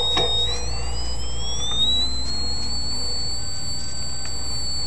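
A Channel Master satellite signal meter's whistling tone rises in pitch from about half a second in, then holds steady at the higher pitch. The pitch tracks signal strength: it climbs as the dish's elevation is moved toward peak signal.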